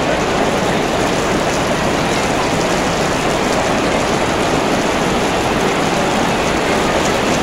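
Heavy storm rain heard inside a large hall, a loud, steady, even noise with no breaks.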